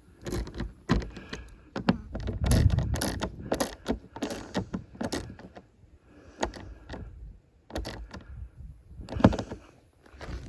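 Irregular sharp clicks, clanks and knocks of tools and metal hardware being handled, with a quieter stretch in the middle.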